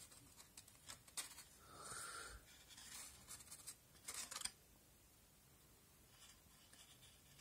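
Faint handling noises from a taken-apart subwoofer's paper cone and fabric spider as they are turned in the hand and brushed against a wooden surface: light rubbing, scraping and small clicks, a little louder about two seconds in and again around four seconds.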